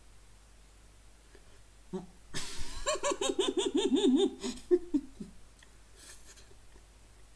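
A man laughing with his mouth closed around a mouthful of doughnut. A puff of breath comes about two seconds in, then about two seconds of wavering laughter, with a few short breaths after it.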